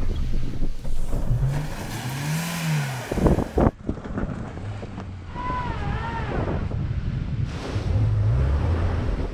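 Small hatchback car engines revving up and down in low gear as they drive over a rutted, muddy dirt track, with wind on the microphone. A couple of sharp knocks come about three seconds in.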